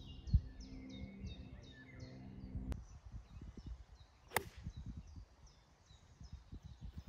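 Golf club striking a golf ball in a full swing: one sharp click about four seconds in.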